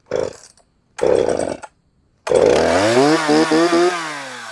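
Freshly tuned Poulan 330Pro two-stroke chainsaw being pull-started. Two short bursts come first, then the engine catches a little over two seconds in. It revs up, holds high revs for over a second, then the revs drop away near the end.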